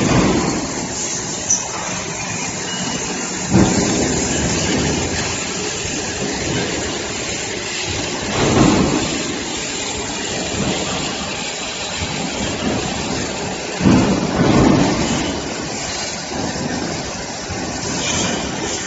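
Automatic metal-cutting band saw running through a bundle of stock, a steady grinding noise. Three louder surges come about five seconds apart.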